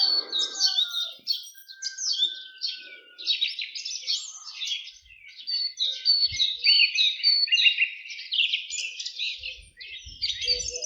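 Morning chorus of several songbirds singing at once: a dense, unbroken stream of high chirps and quick repeated notes.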